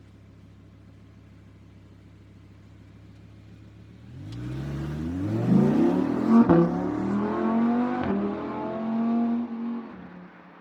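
Audi R8 engine running low and steady, then accelerating hard about four seconds in, its pitch climbing through what sounds like a couple of gear changes before it quickly dies away near the end.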